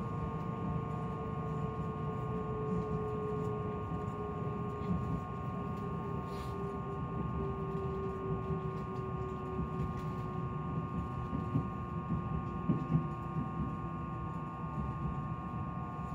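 Inside a Meitetsu 2000-series μSKY electric train under way: steady rumble of wheels on the track with a constant hum, and a drive whine that slowly falls in pitch as the train loses speed. A few short knocks come about two thirds of the way through.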